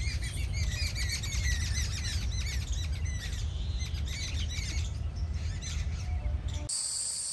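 Many small birds chirping and twittering together over a low, steady rumble. Near the end it cuts abruptly to a steady, high, hissing drone of insects.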